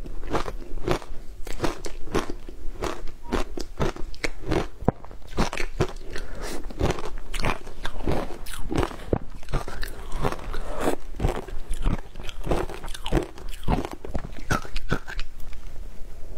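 Crumbled matcha ice being bitten and chewed close to the microphone: a continuous run of crisp, icy crunches, several a second.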